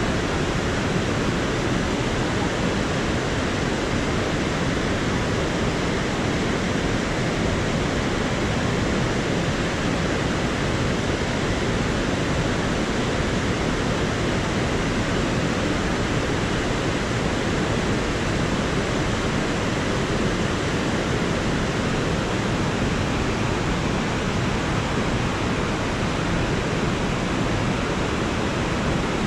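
Whitewater river rapids rushing over boulders: a steady, unbroken rush of water.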